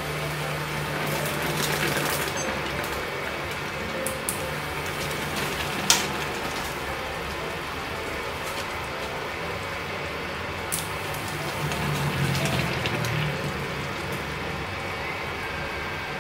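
Pot of cabbage-and-pork soup bubbling at a steady boil in a small saucepan, with a few light clicks of a utensil against the pot.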